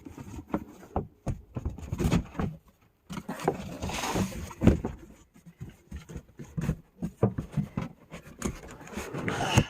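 Cardboard packaging being handled and gathered up: irregular knocks, scrapes and rustles, with a longer rustle about four seconds in.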